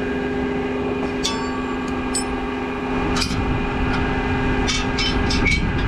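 Tractor engine running with a steady hum, overlaid by short clicks and rattles about a second in, near the middle, and several in quick succession near the end.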